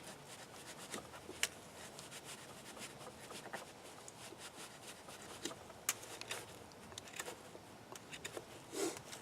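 Bark River Mini Bushcrafter, a small CPM 3V steel fixed-blade knife, carving wood: faint, irregular short scraping cuts, with a few sharper clicks.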